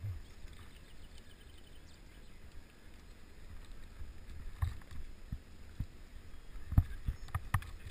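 Low wind and road rumble from riding a road bicycle, with scattered knocks and clicks from the moving bike and camera. The loudest is a thump about seven seconds in.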